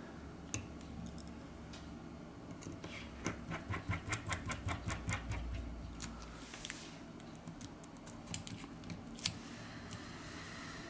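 Small light clicks and taps of a smartphone's motherboard and flex connectors being pressed into its frame, with a quick, even run of clicks, several a second, a few seconds in, and single clicks scattered around it.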